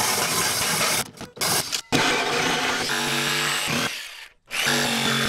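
Cordless drill spinning a large hole saw through a wooden cabinet bottom to cut holes for pipes and conduit. The cutting stops and restarts several times, and near the end the drill's motor whine shows through.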